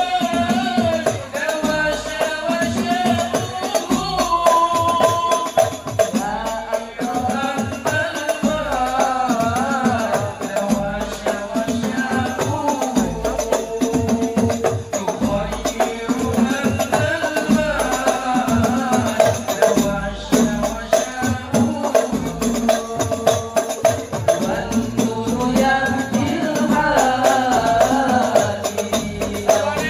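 Banjari ensemble performing sholawat: young men's voices singing a melismatic devotional melody through microphones, over a fast, steady beat of hand-struck frame drums (terbang/rebana).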